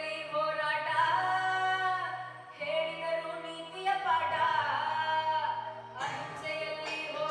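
A boy singing solo in an unbroken voice, holding long notes that slide between pitches, over a low, steady musical backing.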